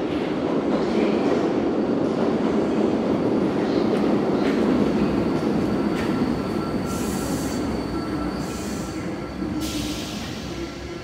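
MF 67 Paris Métro train pulling into an underground station: a loud rumble of wheels on rails that fades as the train slows. Faint steady squeal tones run under it from about four seconds in, and three short high hisses come in the second half as it brakes.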